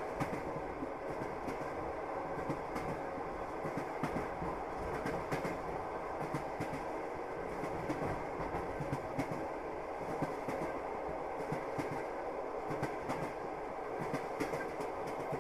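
Passenger train running at speed, heard from inside the carriage: a steady rumble of the wheels on the rails with scattered clicks and knocks.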